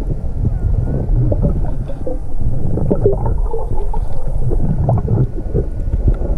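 Underwater sound through a submerged camera: a steady low rumble of water surge with gurgling and many scattered crackles and knocks.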